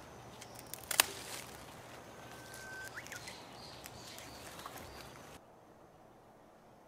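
Garden shears snip a flower stem once, sharply, about a second in, over light rustling of leaves in the open air. A bird gives a short whistle that rises at the end. The outdoor sound drops away to quiet a little over five seconds in.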